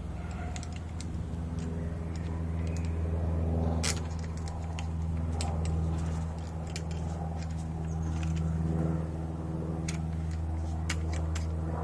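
Light metal clicks and clinks of motorcycle fork parts being handled during reassembly, scattered irregularly with a cluster of sharper ones about four seconds in and several near the end, over a steady low hum.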